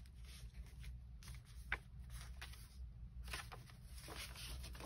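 Faint rustling and light taps of paper sheets being handled and shifted on a tabletop, with one sharper tick a little under two seconds in.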